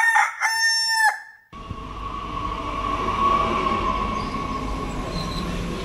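A rooster crowing, its long held final note cut off abruptly about a second and a half in. Steady outdoor background noise follows, with a faint steady hum.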